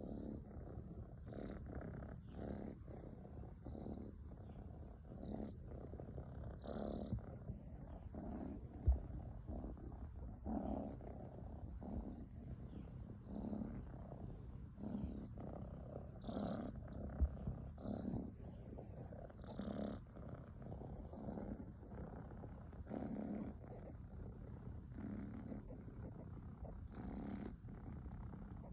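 A cat's low rumbling breath, swelling and fading about once a second. Two short thumps stand out, about a third and about two thirds of the way through.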